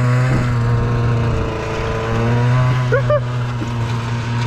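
1983 Yamaha Excel III snowmobile's two-cylinder two-stroke engine running steadily on throttle as the sled pulls out of soft grass onto gravel, its pitch sagging slightly and recovering.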